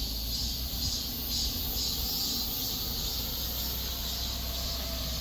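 Steady outdoor background ambience: a low rumble with a high, even hiss, no distinct events.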